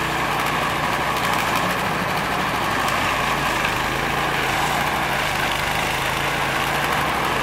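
Snowblower engine running steadily, with its low, even engine hum and the rush of snow being thrown.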